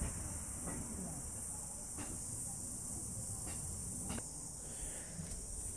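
Steady high-pitched insect chorus, with a few faint clicks scattered through it.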